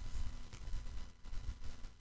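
Quiet room tone between spoken phrases: a steady low rumble with a faint thin hum and a few soft, irregular ticks.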